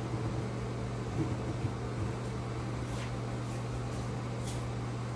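Steady low mechanical hum of a running motor, with a few faint small clicks about three seconds and four and a half seconds in.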